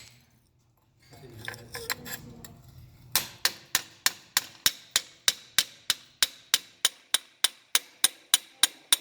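Hammer blows knocking the investment mold off a cast bronze piece: a steady run of sharp, ringing strikes, about three a second, starting about three seconds in, after some light handling clatter.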